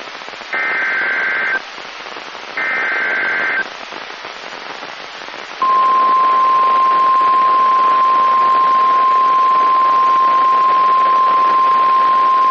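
Emergency Alert System SAME data bursts from a NOAA Weather Radio receiver, heard as two one-second bursts of warbling data tones about a second apart. After that comes the steady 1050 Hz weather radio warning alarm tone, which signals an incoming warning. Radio static hiss runs under both.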